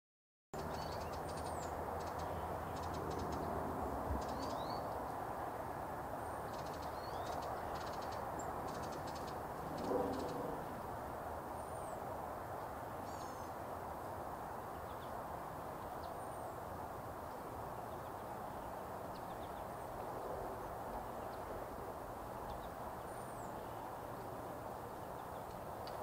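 Steady rushing of a small creek, with scattered short high bird chirps and one brief low sound about ten seconds in.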